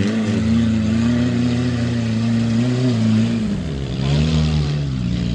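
Engines of a Lada Niva and a Suzuki Samurai running at high revs under load as the two 4x4s push through deep mud. The revs sag a little over three seconds in, then climb again.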